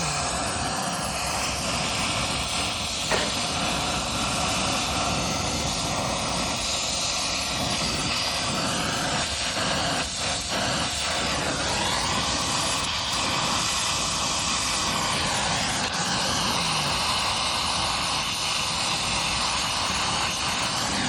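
Brazing torch flame burning with a steady rushing noise as it heats a copper line joint. A single sharp click about three seconds in.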